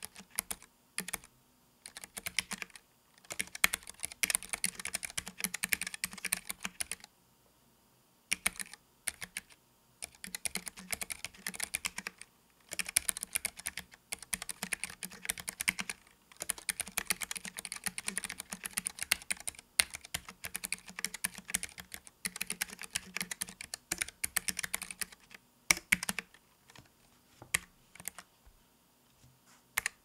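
Typing on a Keychron K3 low-profile wireless mechanical keyboard with low-profile optical white switches, set on a desk mat: fast runs of keystrokes broken by short pauses, with a longer break about seven seconds in and sparser keystrokes near the end.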